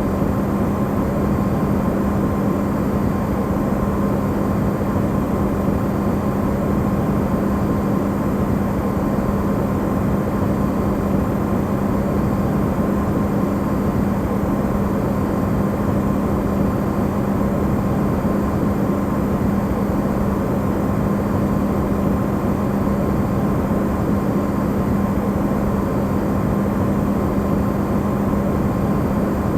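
Amplified recording of an Electrolux refrigerator running: a steady, unchanging hum with a low drone and a fainter higher tone over an even hiss.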